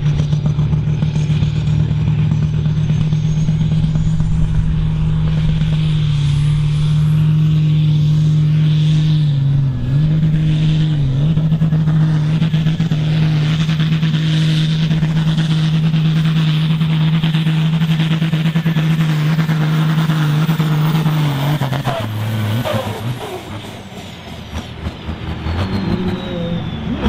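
Engine of an International 946 pulling tractor running flat out under full load as it drags the pulling sled, held at a steady pitch with two brief dips about ten and eleven seconds in, over a high whine that climbs through the first ten seconds. About 22 seconds in the engine is throttled back at the end of the pull: the note drops and quietens and the high whine slides down.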